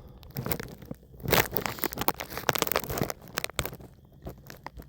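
Irregular clicks and crackling rustles, with a louder crackle a little over a second in.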